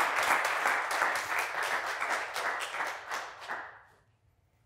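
Audience applauding, a dense patter of many hands clapping that dies away about three and a half seconds in.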